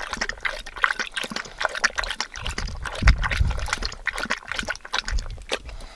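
A dog lapping water from a handheld collapsible bowl, a quick run of wet laps one after another.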